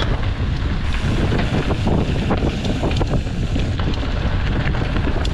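Wind buffeting the microphone while a hardtail mountain bike rattles down rocky ground, with many short knocks from the frame and wheels hitting stones.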